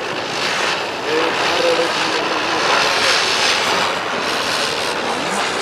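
Lit firework, likely a ground spinner, burning with a steady loud hiss.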